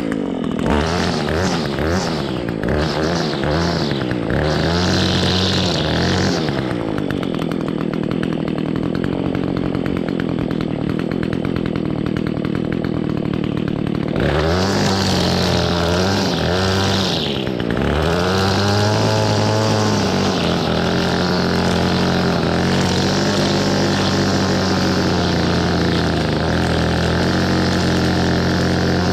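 Two-stroke Echo SRM-225 string trimmer engine revving up and down several times, then held at a steady high throttle while cutting grass.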